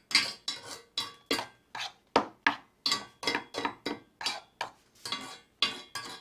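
Metal clinking and scraping on metal in quick, uneven strokes, about two to three a second, as hand tools work on the old lathe's metal parts.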